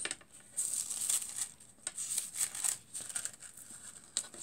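Foil sheet and paper crinkling and rustling in short irregular bursts as they are turned over and smoothed back into place, with a light click near the end.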